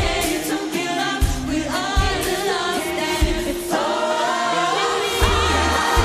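A large mixed choir of men and women singing together in harmony over accompaniment with a deep, repeated drum beat.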